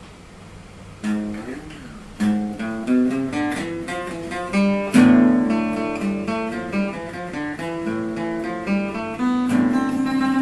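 Guitar playing an instrumental intro of single plucked notes, picked one after another, starting about a second in.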